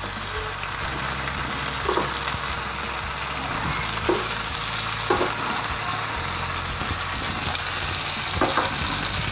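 Steady sizzling hiss from the hot pan of chicken pepper fry, with a few light clicks of metal tongs against the pan and plate as chicken pieces are lifted out.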